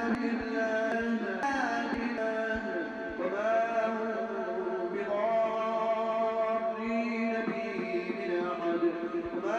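A man's voice chants Quranic recitation in a slow, melodic style. The pitch slides between long held notes.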